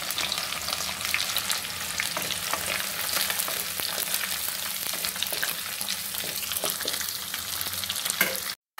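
Chopped onion and capsicum sizzling in hot oil in a pan, stirred with a wooden spatula that scrapes and clicks against the pan. The sound drops out for a moment near the end.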